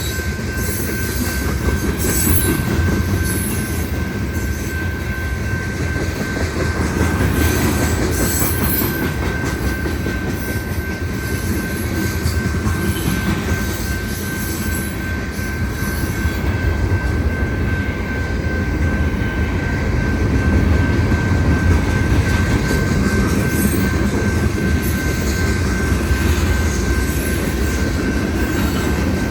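Union Pacific manifest freight train's cars rolling past: a steady low rumble with some wheel clatter, and a thin, steady wheel squeal held throughout.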